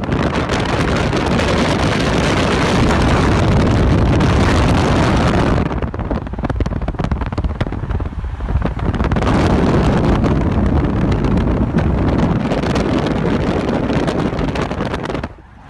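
A car driving at speed: a steady rush of tyre and wind noise that eases about six seconds in and builds again about three seconds later.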